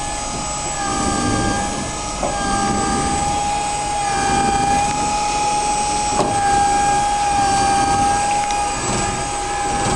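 Yellow pick-and-carry mobile crane running while it carries a suspended transformer, giving a steady high whine over an engine rumble.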